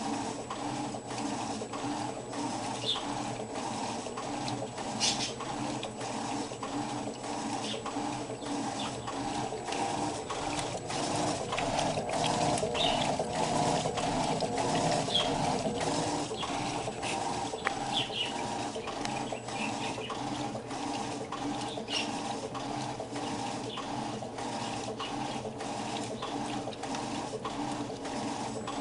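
Electrolux washing machine running through its cycle: a steady mechanical hum with a regular repeating rhythm, water sloshing in the drum and occasional light clicks.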